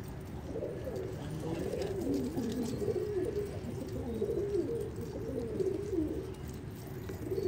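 Several domestic pigeons cooing together, their wavering coos overlapping into a near-continuous warble.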